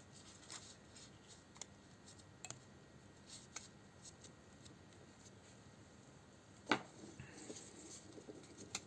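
Faint, scattered clicks and taps of small parts being handled, with one sharper click about seven seconds in.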